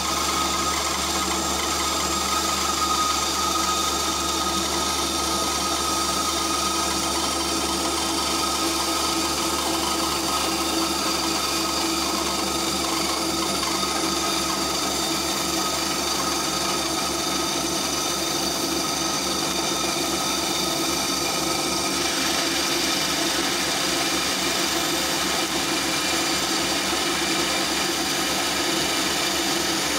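Einhell TC-SB 200/1 benchtop bandsaw running and cutting a 32 mm oak block: a steady machine sound with held tones under the rasp of the blade in the wood. The blade is a well-worn original Einhell blade, and the cut drifts to one side. The higher part of the noise eases a little about two-thirds of the way through.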